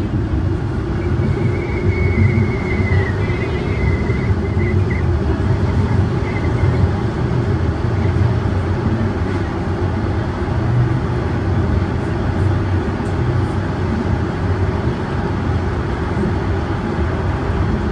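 Toronto Line 1 subway train running between stations, heard from inside the car: a steady, loud low rumble. A faint high-pitched whine comes and goes in the first few seconds.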